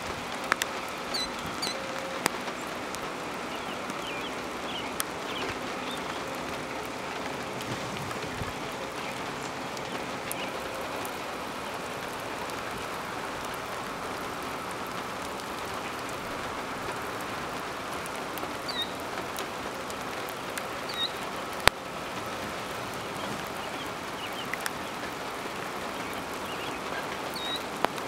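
Steady light rain pattering on wet grass, with scattered sharper drop ticks. A few short, faint, high chirps from birds come through it now and then.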